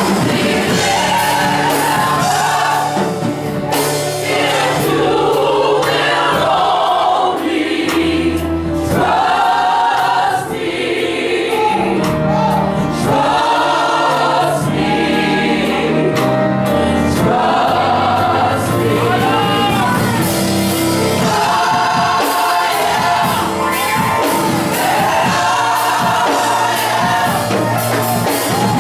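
Gospel choir singing with keyboard and percussion accompaniment.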